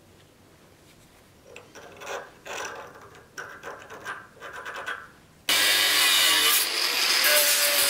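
Steel block scraping and knocking against the jaws of a bench vise as it is handled, then an angle grinder with a cutting disc starts cutting into the steel with a sudden, loud, steady grinding about five and a half seconds in.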